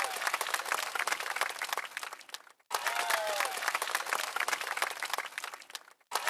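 Applause sound effect: a crowd clapping, opening with a short falling whistle. It fades out and cuts off about two and a half seconds in, then starts over the same way.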